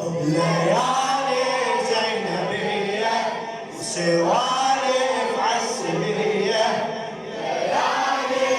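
Men's voices chanting a Shia mourning lament (latmiya) together without instruments. Each phrase slides up in pitch, with a new one starting about every four seconds.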